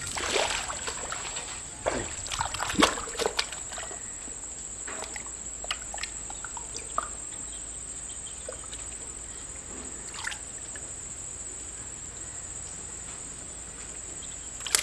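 Hands sloshing and squelching through shallow mud water, with a cluster of small splashes in the first three seconds and quieter trickling after. A steady high-pitched whine sits under it.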